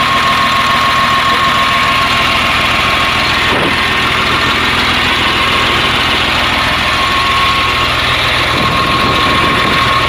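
Caterpillar 950H wheel loader's C7 six-cylinder diesel engine running steadily, with a steady high whine over it. The engine is misfiring and down on power, which the mechanic puts down to one injector being loose or damaged inside.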